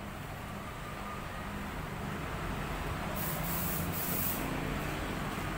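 Compressed air hissing in a car paint shop, louder and sharper from about three seconds in for a second or so, over a steady low machine hum.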